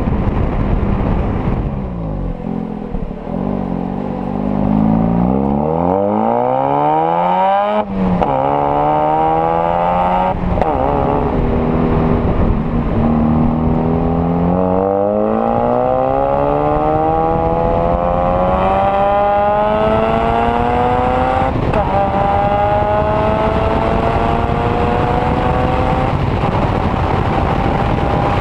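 Mazda RX-8's twin-rotor Wankel rotary engine and exhaust pulling hard through the gears. The pitch climbs in long rising sweeps, each broken by an upshift, with the last gear held and still rising at the end.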